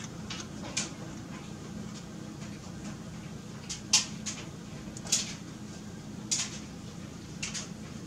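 Scattered, sharp computer mouse clicks, about seven of them, loudest around the middle, over a steady low hum.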